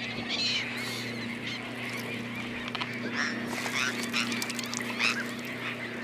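A flock of gulls feeding on krill, calling over one another: many short, high cries overlapping, with a low steady hum underneath.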